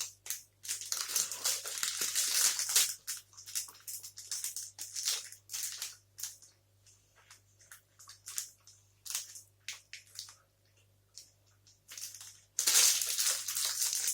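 Chewing a Gainomax fudge sea salt protein bar: irregular crunchy mouth noises in short, quick bursts, sparser in the middle and louder and denser near the end.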